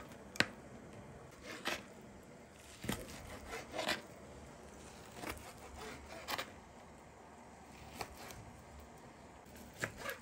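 Knife slicing meat into thin strips on a cutting board: irregularly spaced knocks of the blade against the board, roughly one a second.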